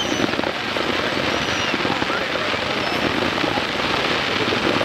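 Fireworks display: a dense, continuous crackle of many small bursts going off in quick succession, with a few brief whistling tones.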